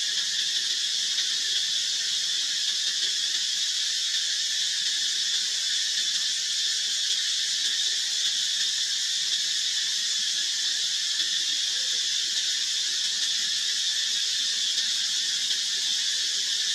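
A steady, high-pitched insect chorus, like cicadas, droning without a break.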